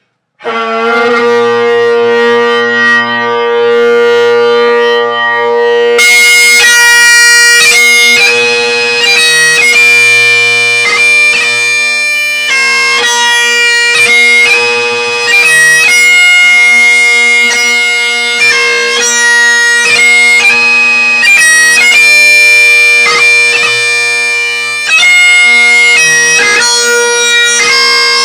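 Great Highland bagpipes striking up: the drones sound alone for about five seconds, then the chanter comes in about six seconds in and plays a tune over the steady drones.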